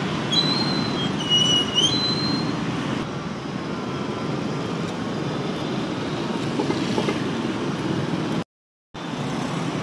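Steady city street traffic: motorbikes, cars and a bus passing close by. From about half a second to two seconds in there is a high-pitched squeal that steps in pitch, and near the end the sound cuts out completely for about half a second.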